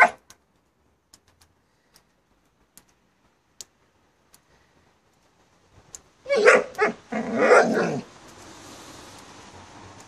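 Dog barking: one sharp bark at the start, then after a quiet stretch with a few faint clicks, a quick run of barks about six seconds in, followed by a steady hiss.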